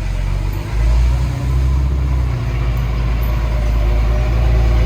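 Heavy diesel engine running loud and steady with a deep low rumble, growing louder just under a second in.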